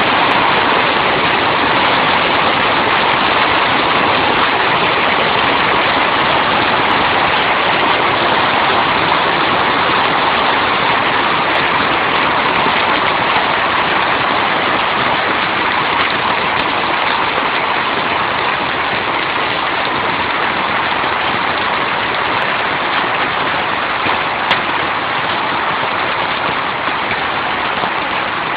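Hail and heavy rain pelting down in a dense, steady rush, heard through a mobile phone's microphone.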